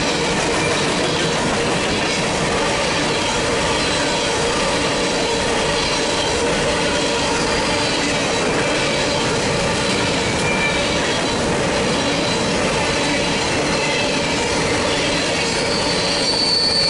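Freight train of covered hopper cars rolling past close by: a steady loud rumble and rattle of steel wheels on the rails, with a thin wheel squeal throughout. The squeal turns louder and higher about sixteen seconds in.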